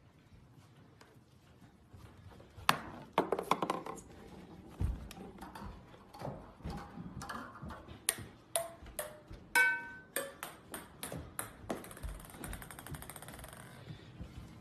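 Golf ball clicking and knocking against hard surfaces in a quick, uneven run of sharp ticks. About ten seconds in, one hit gives off a short ringing ping. Near the end comes a light, fast rattle as it rolls on a hardwood floor.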